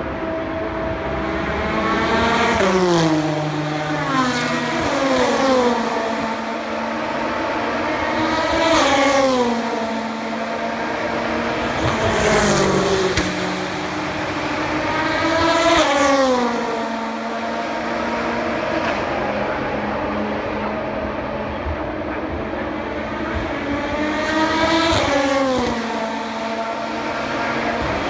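Endurance race cars passing one after another at high speed, each engine note dropping sharply in pitch as the car goes by, with about seven pass-bys.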